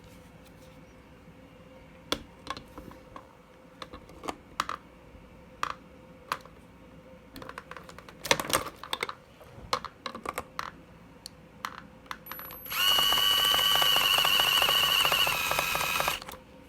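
Scattered light clicks and taps of tool handling, then an IKEA electric screwdriver runs with a steady whine for about three and a half seconds near the end. It is driving a screw extractor's drill end clockwise into a stripped screw head to bore a pilot hole.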